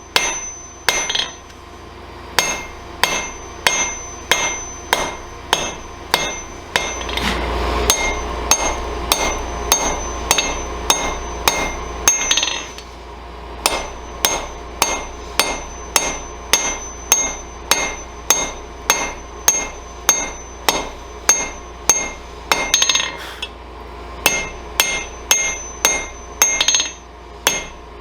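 Hand hammer blows on a hot railroad spike of wrought iron at the anvil, drawing out the point: steady strikes about two a second, each with a bright ring, pausing briefly now and then.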